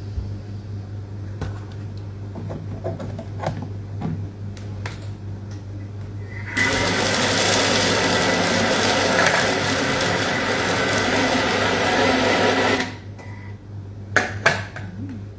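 Electric blender running in one burst of about six seconds, starting suddenly about six and a half seconds in and cutting off just as suddenly, as it purees basil, grana padano, olive oil and hemp seeds into pesto. A couple of sharp knocks follow near the end.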